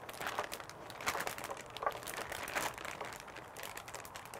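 A plastic zip-top bag crinkling and crackling as it is handled and raw chicken breasts are tipped out of it into a glass dish.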